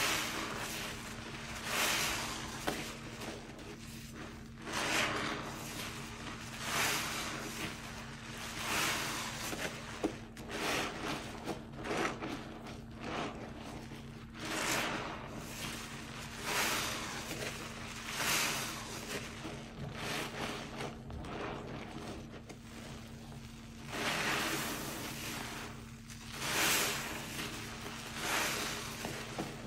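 Soapy cellulose sponge squeezed and kneaded in rubber-gloved hands in a basin of sudsy water: wet squelching and sloshing in repeated swells about every two seconds.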